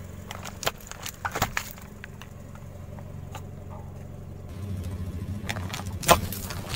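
Car tyre rolling slowly over plastic sachets of liquid laundry detergent on asphalt, with the car's engine running low underneath and the plastic and grit crackling under the tread. About six seconds in, a sharp pop as a sachet bursts and squirts its detergent out.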